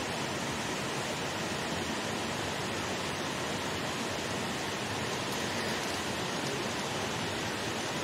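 Steady rushing of a creek: an even hiss of running water that does not change.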